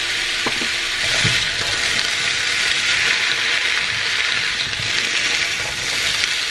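Chicken meatballs and chopped vegetables sizzling in oil in a non-stick frying pan as they are sautéed and stirred with a silicone spatula. The sizzle is a steady hiss, with a few soft knocks and scrapes of the spatula against the pan.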